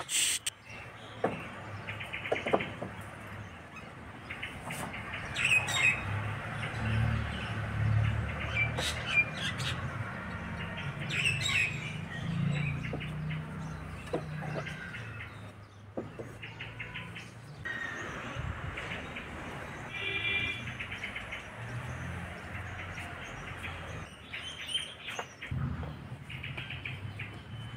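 Birds chirping in short scattered calls, with occasional sharp clicks and a low background rumble.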